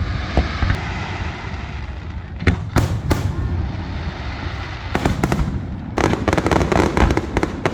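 Fireworks going off: a few separate bangs in the first half, then from about six seconds in a dense, rapid crackling run of many small reports.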